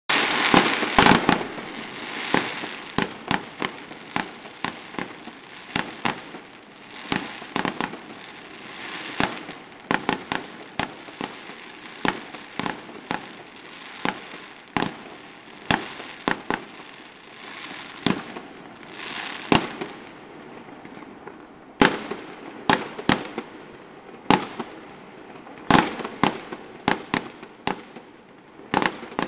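Aerial fireworks salute bursting overhead: a long, irregular run of sharp bangs, often several a second, over a steady crackle, densest in the first couple of seconds.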